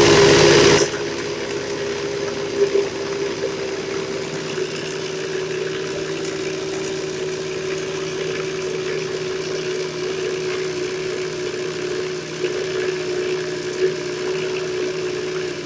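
NutriBullet blender motor running, blending a thick nut-butter mixture of tahini, walnuts and coconut milk. It is very loud for about the first second, then settles into a steadier, quieter hum at one constant pitch, with a few light knocks.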